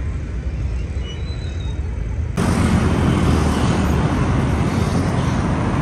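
A low steady rumble, then a sudden switch a little over two seconds in to louder road traffic noise: cars and motorbikes passing on a city road.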